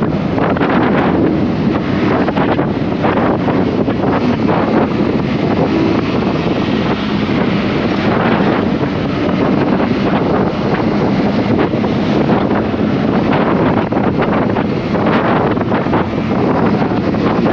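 Wind buffeting the microphone of a moving motorcycle, loud and steady, with the Honda CBR150R's single-cylinder engine running underneath at a fairly even pitch.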